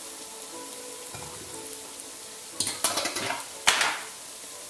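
Uštipak dough frying in hot oil in a pan, a steady sizzle. A little past halfway it is turned with two forks and the sizzle flares up loudly in several bursts for about a second and a half, with one sharp knock.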